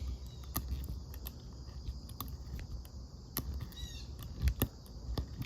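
Scattered light clicks and taps of a multitool's steel awl being worked into a piece of softwood and handled. A short bird chirp about four seconds in.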